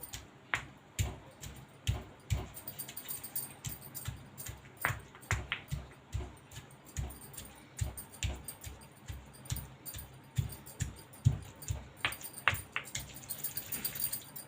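Stone pestle pounding a wet paste of roasted leaves in a stone mortar, a run of dull thuds about two to three a second with the odd sharper knock of stone on stone, working the leaves until their juice comes out.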